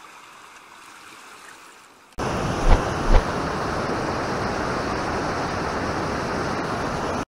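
Faint lapping of lake water, then a sudden cut to a loud, steady rushing of water, with two low thumps about half a second apart shortly after the cut.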